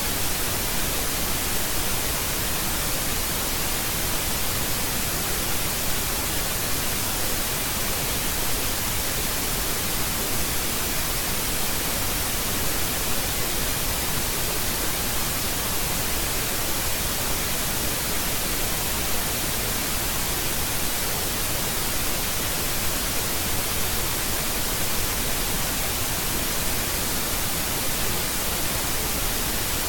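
Steady, even hiss of electronic static from the recording, with a faint thin whine in the upper range and nothing else.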